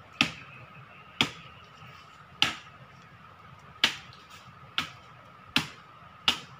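Machete chopping into a tree trunk: seven sharp strikes, roughly one a second, with slightly uneven spacing.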